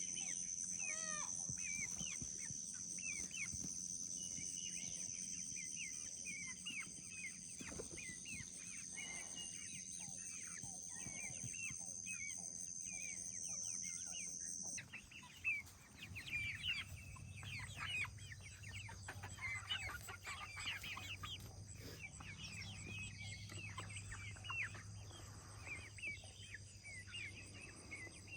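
A flock of backyard chickens clucking and chirping with many short calls, over a steady high-pitched drone that cuts off suddenly about halfway through.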